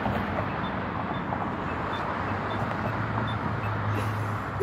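Outdoor vehicle and traffic noise: a steady low engine hum that grows stronger about halfway through, over a general rumble.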